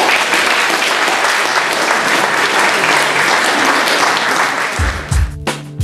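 Audience applauding steadily. Nearly five seconds in, the applause gives way to music with a beat.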